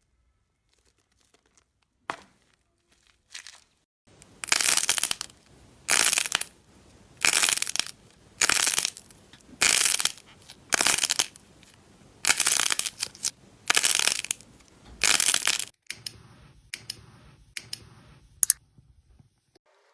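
Slime being pressed and squeezed by hand: about nine short, noisy squeezes a little over a second apart, with a couple of small clicks before them and a few after.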